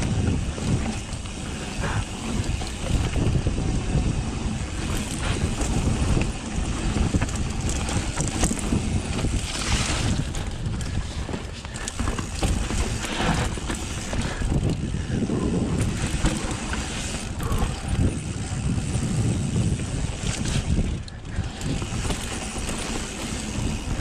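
Wind buffeting the microphone over the uneven rumble and rattle of a mountain bike riding down a steep dirt trail, with irregular knocks from bumps in the track.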